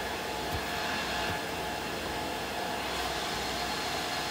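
Steady background hum and hiss of the recording room, with two faint low thumps, about half a second and about a second and a quarter in.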